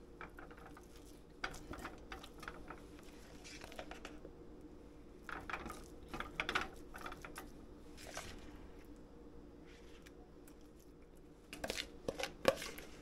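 A plastic spoon scraping and tapping as mashed canned mackerel is scooped from a bowl into a nonstick frying pan: soft, irregular scrapes and clicks, the sharpest taps near the end, over a faint steady hum.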